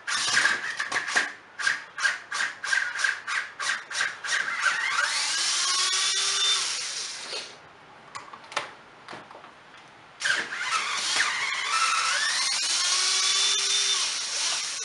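Power drill-driver backing screws out of a Stihl BR420 blower engine: a string of quick short trigger bursts, about four a second, then two runs of a few seconds each with a whine rising in pitch, a short pause between them.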